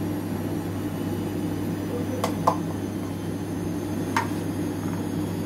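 A steady low electrical hum with three short sharp clicks, two close together about two seconds in and one about four seconds in.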